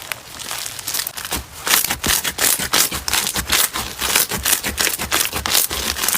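Slime being squeezed and poked by hand, giving a dense run of sharp crackles and pops that grows louder and busier about two seconds in.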